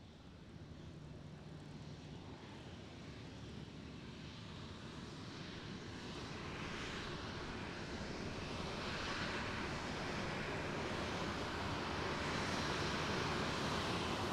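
Airplane approaching, its engine noise growing steadily louder through the whole stretch.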